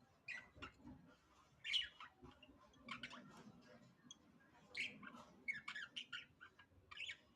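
Budgerigars chirping and squawking in many short, irregular calls.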